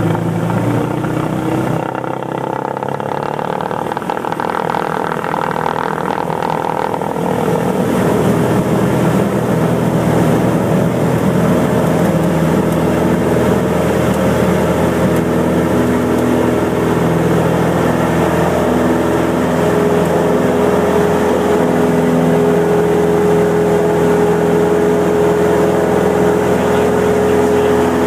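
A Cessna 172M's four-cylinder Lycoming engine and propeller, heard from inside the cabin. About a quarter of the way in the engine grows louder as power comes up for the takeoff, then holds a steady drone through the takeoff roll and lift-off.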